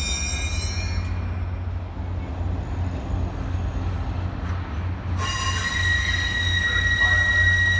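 Steel wheels of Caltrain bilevel passenger cars squealing on the rails as the train rolls slowly, over a low rumble. A high squeal fades out about a second in, and a new, steady squeal starts about five seconds in and grows loud.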